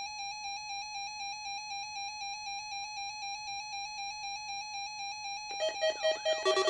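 A steady electronic beep tone starts abruptly and is held for about five and a half seconds, with a slight even wobble. Near the end it gives way to a rapid, warbling pattern of several electronic tones.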